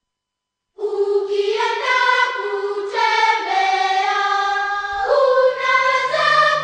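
Silence for under a second, then a choir starts singing slow, held chords as soundtrack music; a low bass note joins about five seconds in.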